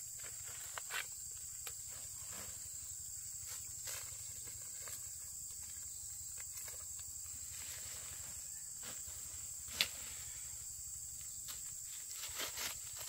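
A steady high-pitched insect drone with scattered rustles and light knocks, and one sharp click just under ten seconds in.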